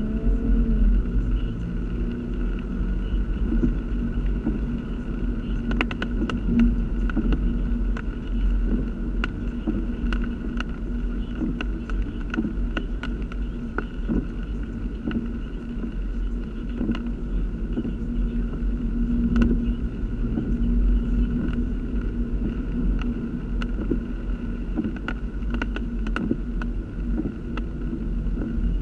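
Vehicle engine running at a steady, unchanging idle, with a low rumble on the microphone and scattered sharp clicks over it.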